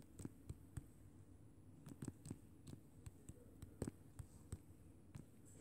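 Faint, irregular taps of typing on a tablet's on-screen keyboard, a dozen or so short ticks over a low background hum.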